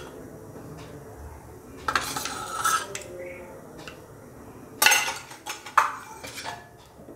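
Metal spoon scraping and clinking against a metal kadai as oil is spread around the pan, in two short bouts about two seconds and five seconds in.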